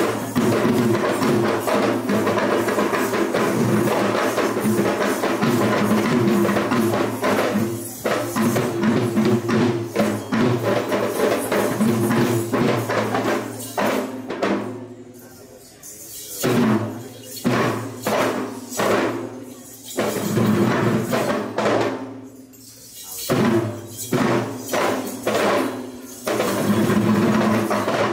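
Sri Lankan low-country yak bera drums played by hand in an ensemble. The drumming is fast and continuous at first, breaks about halfway into separate accented strokes with short pauses, and turns fast and dense again near the end.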